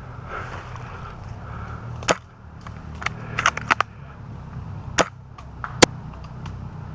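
Airsoft guns firing: sharp single snaps about two seconds in, around five seconds and just before six seconds, with a quick cluster of shots around three to four seconds.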